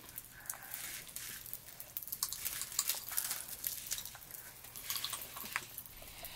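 Pop Rocks popping candy crackling as it is eaten: an irregular scatter of small sharp pops and clicks, with some crinkling of the candy packet.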